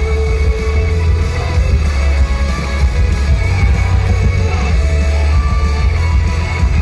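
Upbeat idol-pop song played loud through a stage PA, with a heavy, steady bass beat; a held high note fades out about half a second in.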